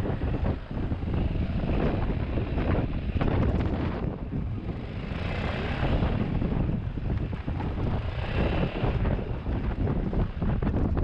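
Wind buffeting the microphone during a motorcycle ride, with the motorcycle's running noise beneath it, uneven and gusting throughout.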